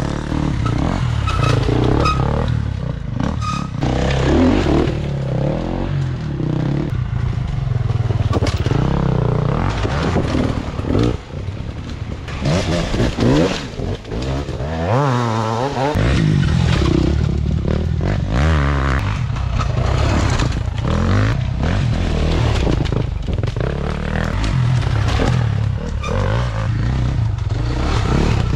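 Enduro motorcycles passing one after another, engines revving hard, their pitch rising and falling as the riders work the throttle.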